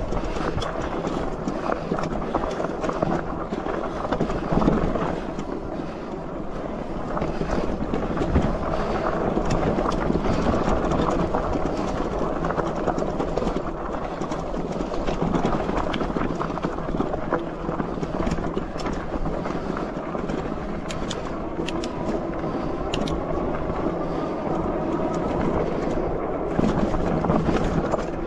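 Wind buffeting the microphone of a handlebar-mounted camera as a Trax e-bike rides over a rocky dirt trail, with tyre noise on loose stones and frequent small clicks and rattles from the bike.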